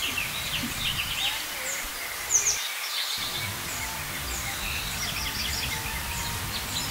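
Many small birds chirping and twittering over steady outdoor background noise. The low background noise drops out briefly about three seconds in.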